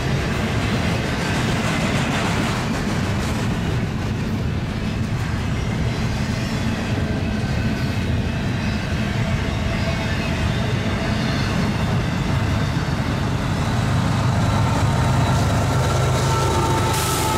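Freight trains rolling past on double track, a steady rumble of wheels and cars. In the last few seconds a faint high whine comes in and slowly falls in pitch.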